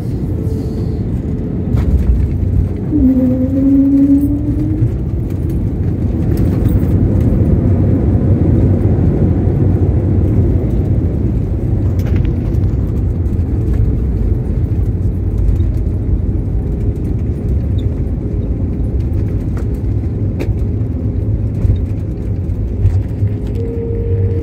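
Airbus A320-family airliner's landing rollout heard from inside the cabin: a steady deep rumble of engines and runway that gets louder about two seconds in. A short rising whine comes about three seconds in.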